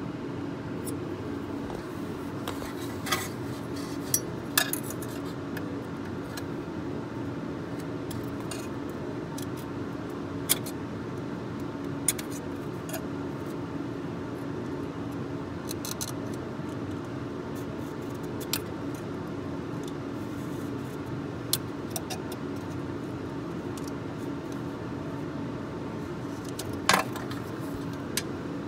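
Scattered light metallic clinks, about ten at irregular intervals, the loudest near the end, from a thin metal rod touching the turbocharger's outlet flange and its new gasket, over a steady background hum.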